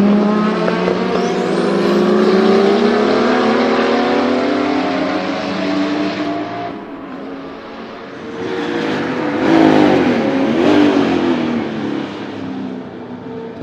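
Porsche 935 Turbo Kremer race car's turbocharged flat-six accelerating hard, its pitch climbing steadily for about six seconds before cutting back sharply. The car then passes close by with a sweep in pitch and fades away.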